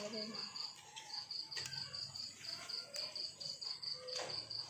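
A cricket chirping steadily, a single high note pulsing several times a second, with a few light knocks and rustles from handling food and leaves.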